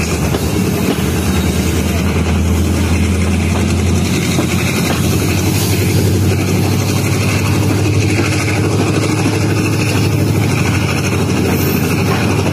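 Diesel-hauled passenger train running after departure: a steady low engine drone over the rumble of the moving coaches.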